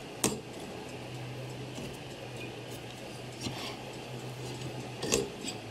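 Quiet workshop sound with a steady low hum, as a hand-turned reamer in a clock bushing press is worked in a brass movement plate to open up a worn pivot hole for a new bush. A sharp click comes shortly after the start and another near the end.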